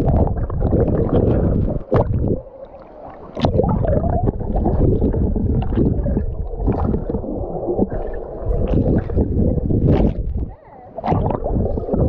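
Muffled gurgling, sloshing and bubbling of water heard through a phone microphone held underwater by a swimmer, with two brief lulls.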